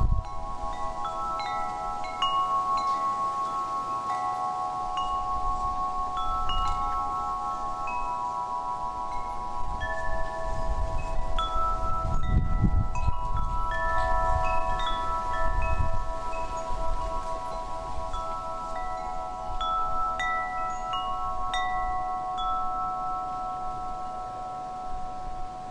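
Wind chimes ringing: overlapping held metallic tones with short higher strikes at irregular moments.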